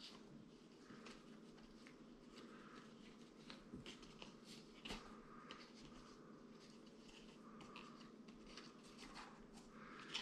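Near silence with faint handling noise: scattered small clicks and rustles of nylon cable ties, a plastic gear-lever trim surround and a leather gaiter being worked by hand, with one slightly louder click about five seconds in.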